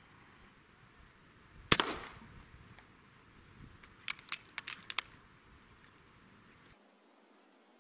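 Air Arms S510 Ultimate Sporter, a regulated .177 sub-12 ft-lb PCP air rifle, firing once: a single sharp crack with a short tail. A couple of seconds later comes a quick run of about six sharp clicks.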